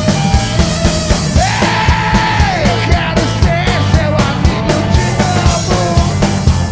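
Rock band playing loud and live: a driving drum beat under distorted guitars and bass, with a long shouted vocal note about a second and a half in that rises, holds and falls away.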